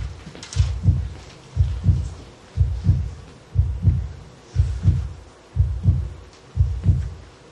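Heartbeat sound effect: slow, steady deep double thumps, about one beat a second.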